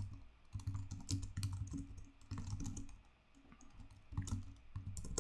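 Computer keyboard typing: irregular runs of keystroke clicks, with a short pause about three seconds in.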